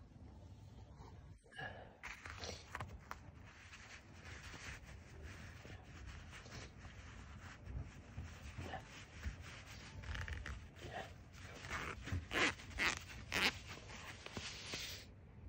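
Synthetic stretch trekking-pants fabric rustling and scraping as a hand works the zipped pocket and rubs the cloth close to the microphone, with a cluster of louder sharp rasps near the end.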